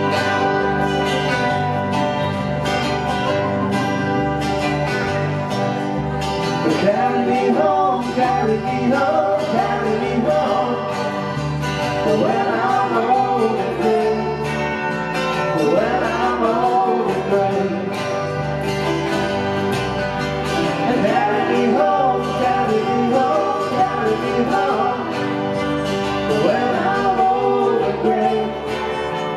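Live band playing a song on electric guitar, acoustic guitar and bass guitar, with vocals coming in a few seconds in.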